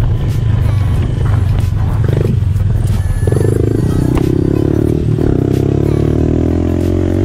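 Pit bike engine running while being ridden, with a steady low drone; about three seconds in its pitch comes up, dips, then climbs gradually as the bike gathers speed.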